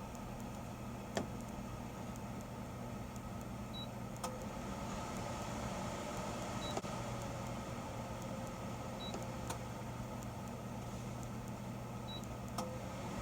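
Self-contained air conditioner with no outdoor unit, running with a steady hum. Short faint high beeps come about every three seconds, with a few light clicks.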